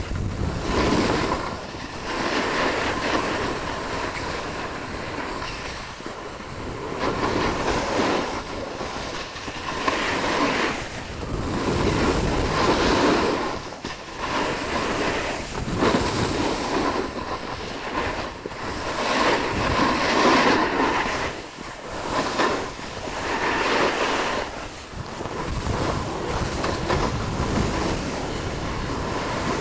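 Snowboard sliding down a ski run, its edge scraping over the snow in swells every two to three seconds as the rider turns.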